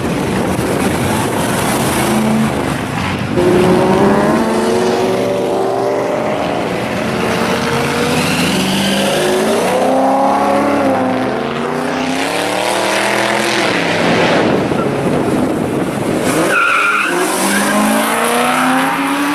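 Classic muscle cars pulling away one after another, their loud engines revving up with rising pitch as each accelerates past. A brief high squeal comes near the end.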